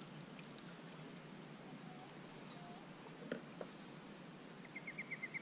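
Faint outdoor ambience with a few short, high bird chirps and a single click partway through. Near the end a fast, even run of ticks begins.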